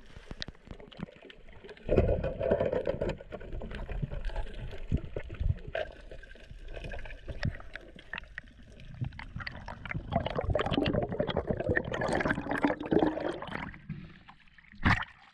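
Underwater audio from a camera swimming over a reef wreck: scattered sharp clicks and crackle, with two longer surges of gurgling, churning water. Near the end a short splash as the camera breaks the surface.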